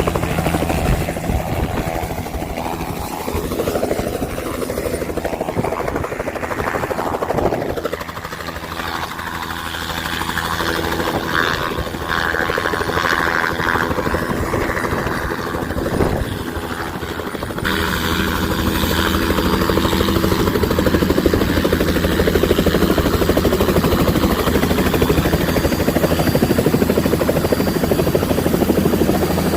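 Helicopter's turbine and rotor running steadily, with a low hum of even tones under a noisy rush, louder and more even from about 18 seconds in.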